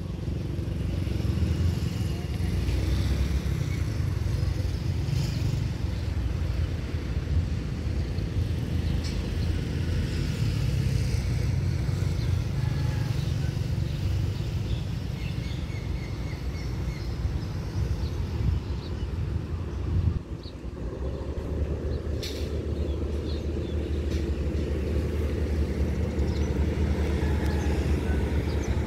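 A steady low engine rumble that dips about twenty seconds in and settles into a steadier drone, with one sharp click a little after.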